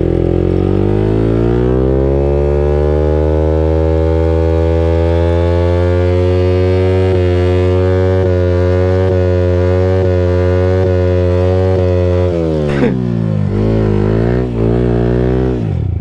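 Motorcycle engine revved hard and held at high revs for about twelve seconds as the rider tries to free the stuck bike. The revs then drop and are blipped up and down a few times.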